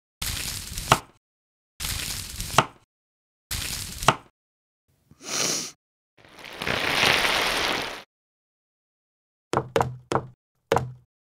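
Kitchen knife cutting through an onion three times, each stroke a crunchy cut ending in a sharp tap on the cutting board. A short hiss and then a longer, louder hiss follow about halfway, and a few short knocks come near the end.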